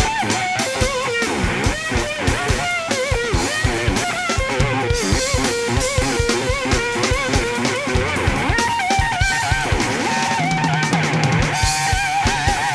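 Instrumental jazz-rock: an electric slide guitar plays a fast lead line with gliding, wavering notes over a busy drum kit and bass.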